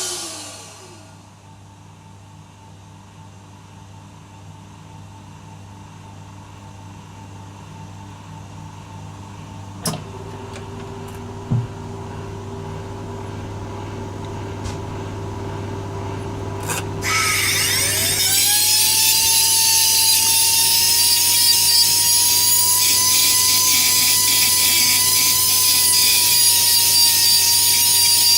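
Workshop machine or power tool starting up about two thirds of the way in: a whine rises in pitch, then holds steady with a loud hiss over a low hum. Before that there is only a quieter hum and two brief clicks.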